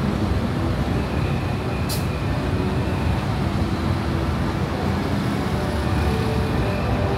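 Busy city road traffic: a steady, dense rumble of engines and tyres, with a sharp click about two seconds in.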